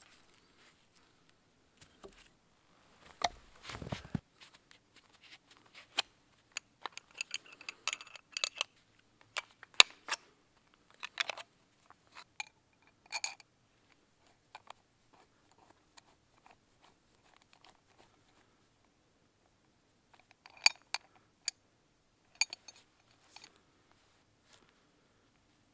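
Scattered short clicks and scrapes of a small wooden stick being worked by hand, with a metal ring on it, in clusters with quiet gaps between. About three to four seconds in there is a duller, heavier handling noise.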